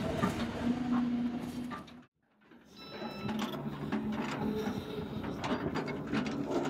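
Excavator's diesel engine running while rocks and soil clatter and knock as they are loaded into a dump truck. The sound cuts out for about half a second just after two seconds in, then the engine and clatter carry on, with a short high beep about three seconds in.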